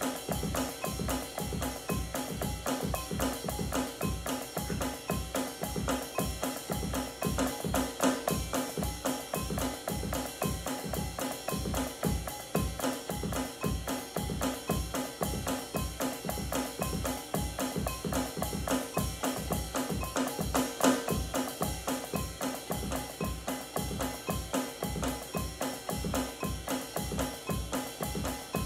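Drum kit played in a fast, steady groove, with drum strokes in an even driving pattern under a continuous wash of cymbals. Two louder accents stand out, about a third and two-thirds of the way through.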